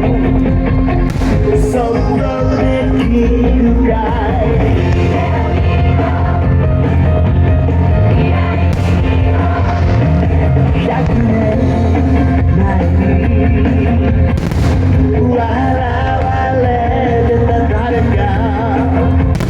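A song with a singing voice and band backing, playing loud and steady.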